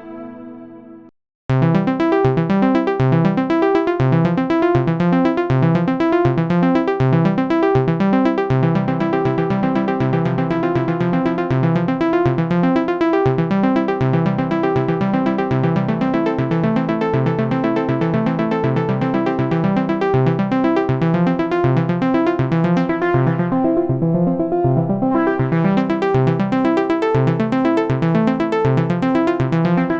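A wavetable synthesizer patch from the UVI WaveRunner Orange sample library: a previous sound fades out, and after a brief silence about a second in, a new patch starts up with a fast pulsing pattern of repeated chord notes. Near the end its bright top briefly dims and comes back, like a filter closing and reopening.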